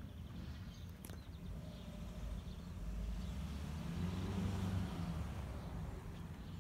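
A small engine running with a low hum. It grows louder to a peak a little past the middle, where the pitch bends, and then eases off, like a motor passing by.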